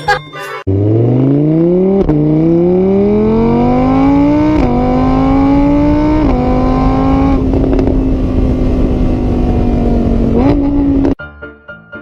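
A car engine accelerating hard through the gears: the pitch climbs, drops at three upshifts, then holds steady, with a brief rev near the end before the sound cuts off suddenly.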